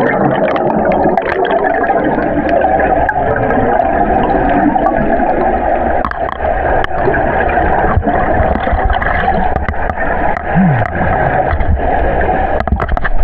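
Muffled water noise heard through an underwater camera housing: a steady gurgling rush with many small clicks, and a short falling tone about ten and a half seconds in.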